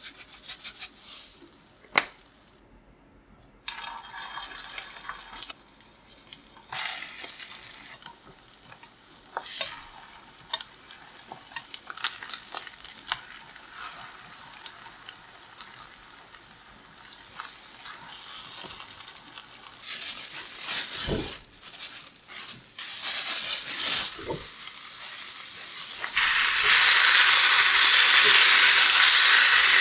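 Home cooking at the stove: food frying in a pan, stirred and scraped with a utensil, with scattered clicks and knocks. About four-fifths of the way in, a loud, steady sizzle sets in and keeps going.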